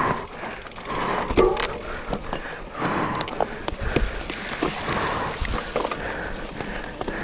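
Electric mountain bike ridden over rough trail, with the tyres rolling on dirt and rock and frequent irregular knocks and rattles from the bike.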